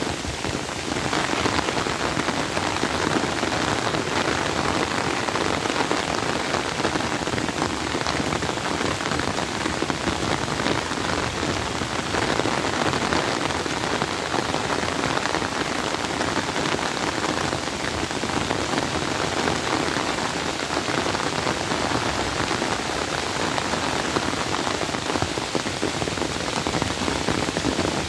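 Heavy rain pouring steadily onto tree leaves, grass and pond water: a dense, even hiss of countless drops that never lets up.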